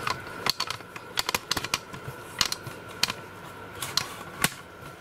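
Irregular light clicks and taps from handling a phone and cables, scattered unevenly, over a faint steady whine.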